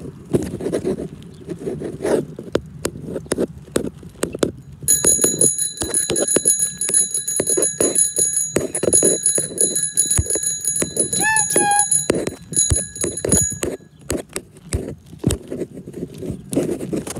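A small bell rings rapidly and without pause for about nine seconds, starting about five seconds in, with a short break near the end. Beneath it runs an uneven clatter and rumble of movement along a concrete path.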